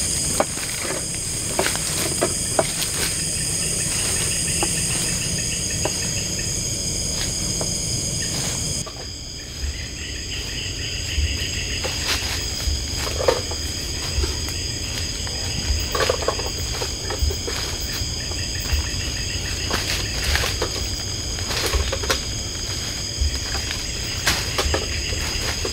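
A night-time tropical forest insect chorus: several steady, high chirring tones that run on without a break. The mix of the chorus changes abruptly about nine seconds in. Over it come scattered rustles and snaps of footsteps pushing through undergrowth and leaf litter.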